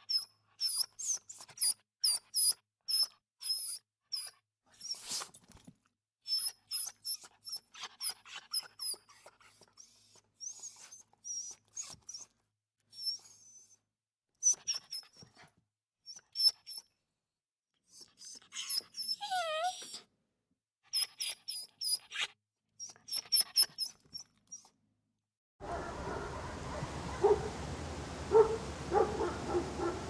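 Dog sound effects: runs of short, high-pitched yelps and whimpers, several a second, broken by brief pauses, with a longer falling whine about 19 seconds in. Near the end a recording with a steady background hiss takes over.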